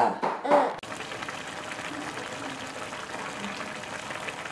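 Pork, sauerkraut and blood-sausage stew simmering in a wide pan, a steady bubbling that starts about a second in.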